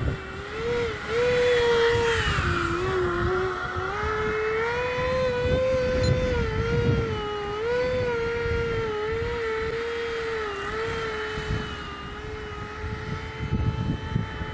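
Electric ducted fan (DF-55 fan on a 4200KV motor) of an RC glider running in flight: a steady whine whose pitch rises and falls slightly as the throttle changes, over a low rumble of wind on the microphone.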